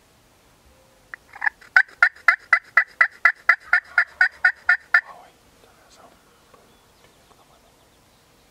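Turkey yelping: a quick run of about fifteen loud yelps, about four a second, lasting some four seconds, then stopping.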